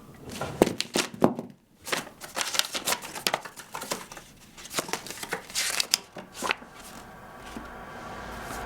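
Paper or packaging crinkling and tearing as a package is opened, a run of irregular rustles and clicks. A low steady hum takes over near the end.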